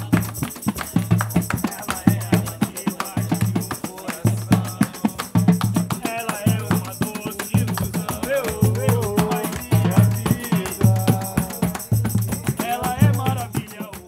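Pagode samba played live on percussion: a deep hand drum keeps a steady beat while a pandeiro jingles busily over it. Voices sing a melody from about the middle on.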